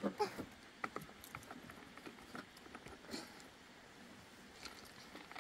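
Small stones clacking and knocking against each other as they are handled and dropped: faint, irregular clicks scattered a few to the second.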